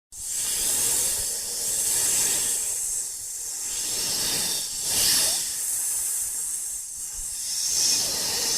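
A hissing rush of noise that starts abruptly and swells and eases several times.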